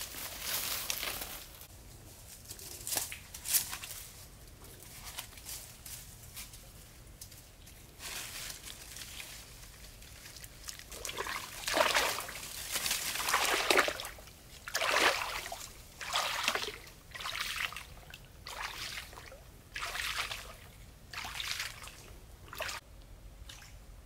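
Water sloshing and splashing around a person's legs as they wade through a shallow stream, one swish with each stride, about one a second in the second half.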